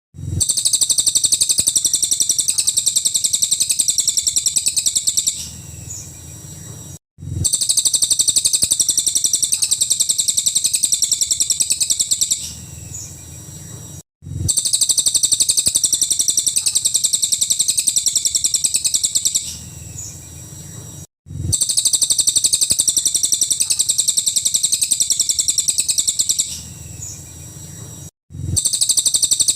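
Cililin bird singing its fast 'nembak' song: a rapid, high-pitched trill of many notes a second, each burst about five seconds long. The burst trails off and the song starts again after a brief break, four times over in a steady repeating pattern.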